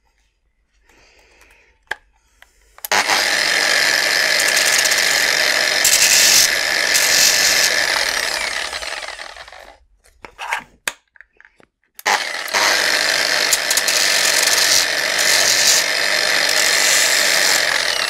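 Angle grinder with a disc run twice, each time for about six or seven seconds and winding down at the end, grinding the printing ridge off the edge of a 3D-printed plastic part. A few short handling knocks fall between the two runs.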